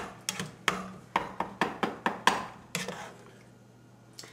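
Kitchen knife chopping on a cutting board: quick, uneven strokes about three a second that stop about three seconds in.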